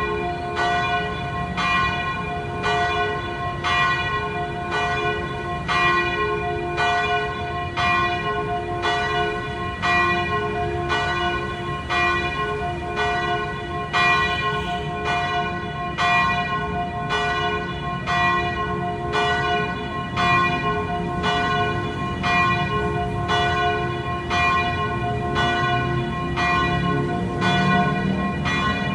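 Church bell ringing in a fast, even, unbroken peal, about three strokes every two seconds, each stroke renewing a set of sustained ringing tones.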